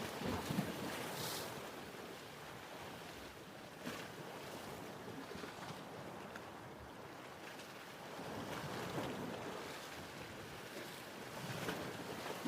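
Ocean waves washing in and drawing back, swelling about a second in, again around eight to nine seconds, and near the end.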